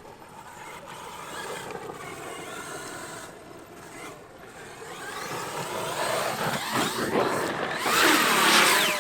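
Radio-controlled trucks driving, their electric motors whining and rising and falling in pitch with the throttle. The sound builds over the second half and is loudest just before the end.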